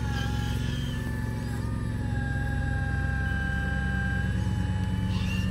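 Radio-controlled model mining machine running: a steady low engine-like rumble under a high motor or pump whine that drops in pitch about one and a half seconds in and climbs back up near the end.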